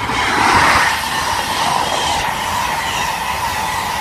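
InterCity 125 high-speed train passing close by at speed: a sudden rush, loudest about half a second in as the diesel power car goes by, then a steady rumble of the coaches' wheels on the rails.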